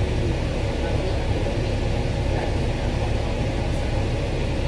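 Dennis double-decker bus running on the road, heard from on board: a steady engine and drivetrain rumble with road noise, even throughout.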